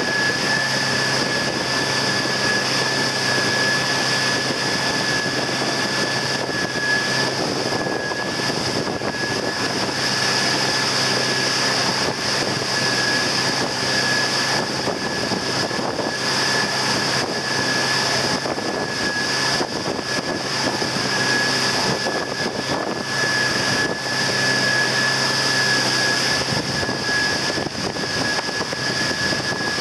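Motorboat engine running steadily at speed, with a steady high whine over the rush of the churning wake.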